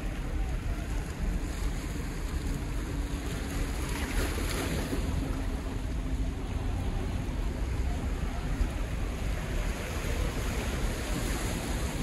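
Black Sea waves washing against a rocky breakwater, with wind rumbling on the microphone; the wash swells briefly about four seconds in.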